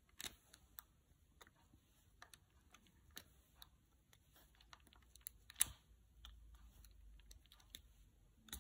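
Faint, irregular light taps and clicks of a diamond-painting drill pen picking up drills and pressing them onto the sticky canvas, with one sharper click about five and a half seconds in.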